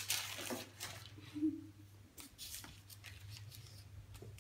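Soft rustling of the paper sheet under a roll of puff pastry as it is handled, in a few short bouts during the first second and again about two seconds in.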